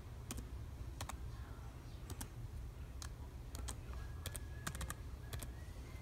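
Typing on a computer keyboard: about fifteen separate key clicks at an uneven pace, some bunched in quick pairs and threes, over a faint low hum.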